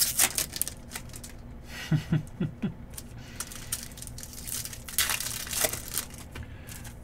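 Trading card pack wrappers crinkling and tearing in irregular crackles as packs are opened.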